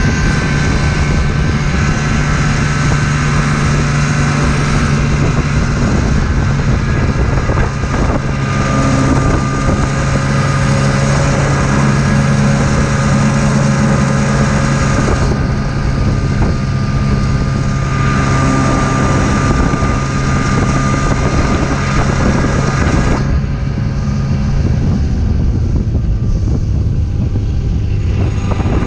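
Snowmobile engine running steadily at travelling speed, with wind rushing over the microphone; the wind rush eases about three-quarters of the way through while the engine drone carries on.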